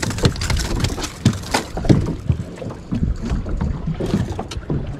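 A freshly landed walleye flopping on the aluminum floor of a small boat: a run of irregular sharp knocks and slaps, with wind rumble on the microphone.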